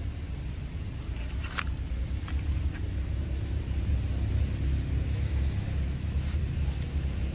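A low steady rumble of outdoor background noise, with a few faint sharp clicks, the clearest about one and a half seconds in.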